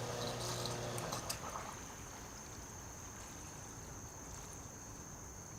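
Sump pump running in a test tub of water, its motor hum cutting off about a second in, leaving faint trickling water.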